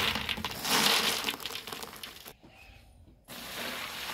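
Dry soya chunks rattling and clattering as they are poured from a bag into a large aluminium pot, in two surges that fade away over about two seconds. Near the end a steady rush of water starts pouring from a metal jug into the pot.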